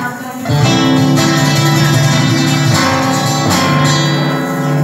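Acoustic guitars playing live, strummed chords with held notes ringing on.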